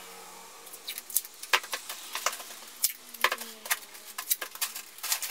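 Sheets of newspaper being spread out and smoothed over a table, rustling and crinkling in quick, irregular crackles.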